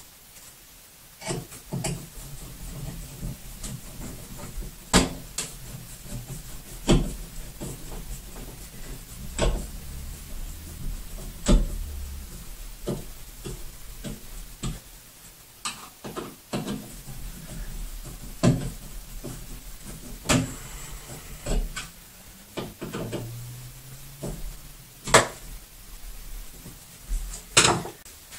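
Hands working a towel bar's wall-mount hardware: irregular sharp clicks and knocks with some rubbing, spaced a second or more apart.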